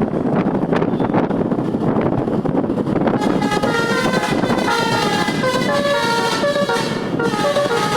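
A bus's telolet musical air horn playing a tune of short, stepped notes, starting about three seconds in, over steady vehicle noise.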